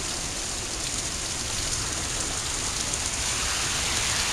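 Heavy rain pouring down steadily, growing a little louder near the end.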